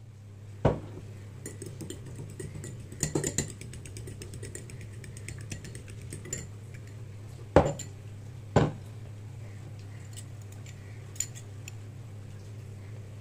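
Cutlery beating eggs in a small glass bowl, rapid light clinking against the glass for a few seconds. A few sharp knocks of the utensil on the bowl stand out, two of them close together past the middle, over a low steady hum.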